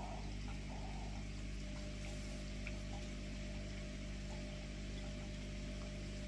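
Steady low electrical hum with a faint hiss, broken only by a few tiny faint ticks.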